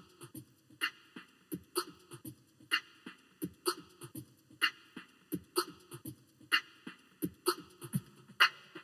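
Drum beat as a backing track: a sharp snare-like hit about once a second with low kick-like thuds between, at a steady tempo.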